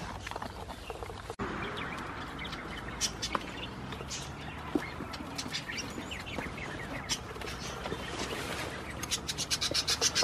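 Goat chewing hay close up, then small birds chirping on and off, with a quick run of chirps near the end.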